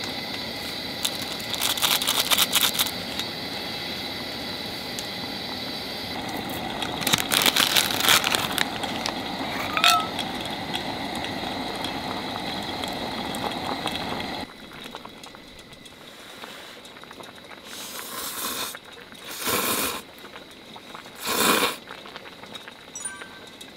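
Clam broth boiling hard in a stainless pot, with crackling and rustling as a block of dry ramen noodles is pushed in and stirred with chopsticks. About halfway through it turns quieter, and a few short slurps follow as broth is sipped from a bowl.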